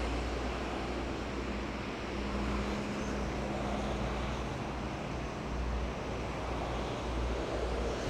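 Steady rushing roar of a jet airliner's engines at an airport, with wind buffeting the microphone in uneven low gusts.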